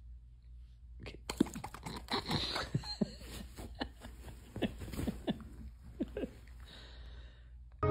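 A dog chewing, with irregular crunches and clicks for about five seconds.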